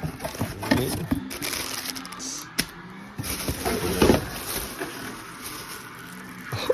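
Welding helmet's packaging being opened by hand: cardboard and wrapping scraping and rustling, with several sharp snaps and clicks.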